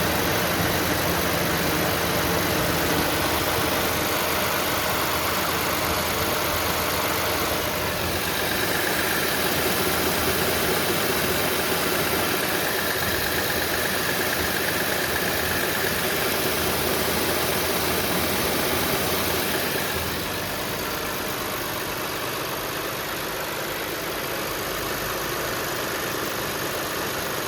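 2008 Lexus IS 250's engine idling with its new electric radiator cooling fans running, a steady rush of air over the engine hum; the fan assembly is working after replacement. The sound drops a little about twenty seconds in.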